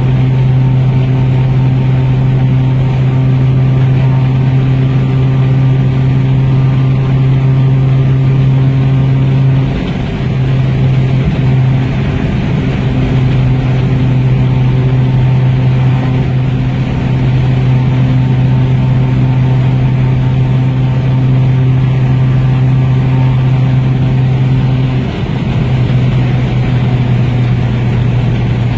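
Four-cylinder car engine heard from inside the cabin, droning steadily at high revs under highway speed, with tyre and wind noise. The drone breaks off briefly about ten seconds in and again near the end, then carries on.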